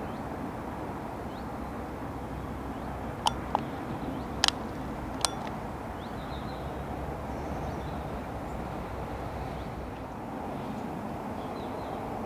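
Open-air riverside ambience: a steady low rush, broken by four short sharp clicks between about three and five seconds in, with faint bird chirps.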